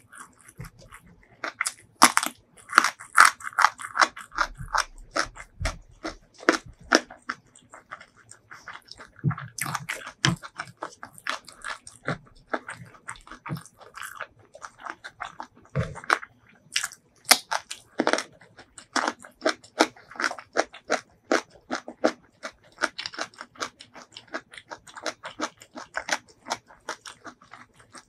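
Close-miked eating of rice and spicy shrimp salad with raw greens: steady chewing with many irregular crisp crunches and wet mouth clicks.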